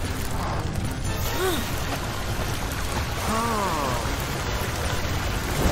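Cartoon fire truck's water cannon spraying in a steady hiss over background music, with two short rising-and-falling tones about a second and a half and three seconds in.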